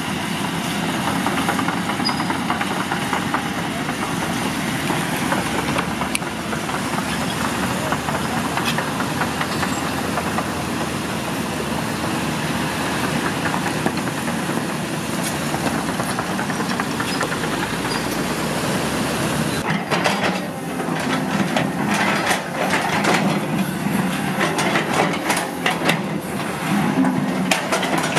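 Caterpillar 320D GC tracked excavator running on its diesel engine, with the steel tracks clanking and rattling as it travels. About two-thirds of the way through, the sound turns to irregular sharp knocks and clatters.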